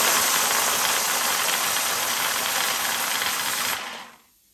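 Compressed air hissing loudly from an air blow gun into a plastic bottle, churning the small numbered balls inside. The air cuts off near the end and the hiss fades away quickly.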